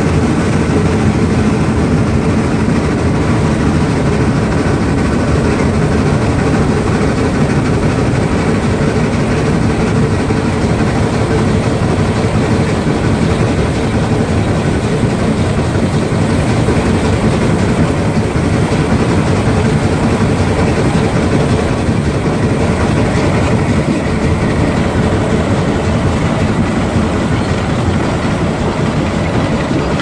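Shay geared steam locomotive No. 11 running along the track, heard up close from the locomotive itself: a loud, steady, continuous mix of exhaust and running-gear noise.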